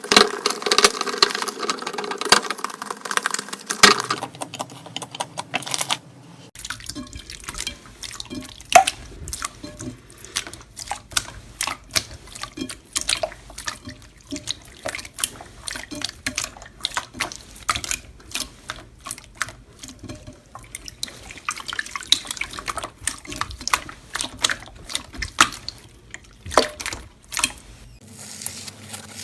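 Slime being squished and kneaded by hand: a fast, irregular run of wet clicks and pops.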